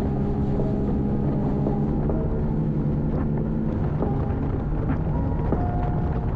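Bass boat's outboard motor running at speed across open water, with wind buffeting the microphone.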